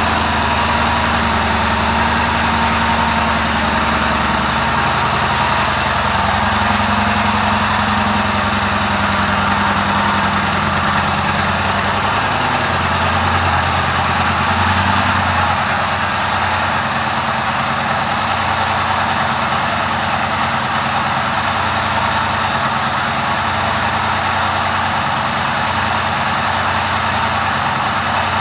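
Yamaha Bolt C-Spec's air-cooled V-twin engine idling.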